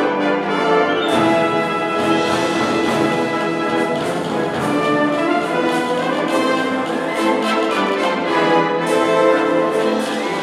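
Concert wind band playing, with trombones and the rest of the brass to the fore in full, sustained chords.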